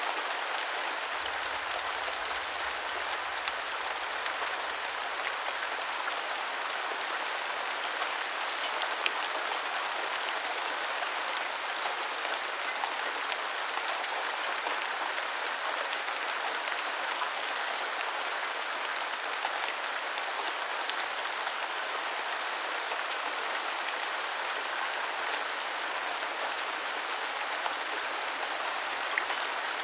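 Steady rainfall: an even hiss of rain with many small drop ticks scattered through it.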